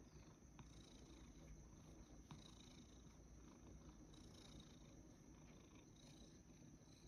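Domestic cat purring softly and steadily while its chin is being scratched, a sign of contentment.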